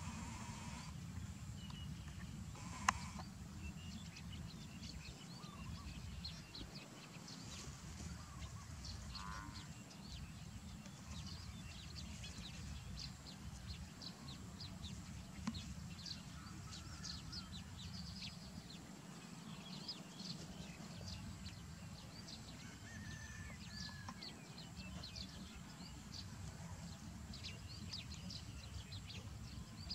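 Faint outdoor field ambience: a steady low rumble with many short, high chirps scattered throughout, and one sharp click about three seconds in.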